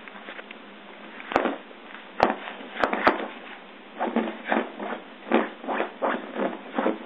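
A small furry pet playing with a ball toy. A few sharp clicks and knocks come about 1 to 3 seconds in, then a run of short scuffing thumps, about two a second.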